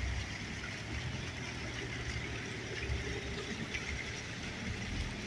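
Steady street ambience: a low traffic rumble and the splashing of a small fountain, with no distinct events.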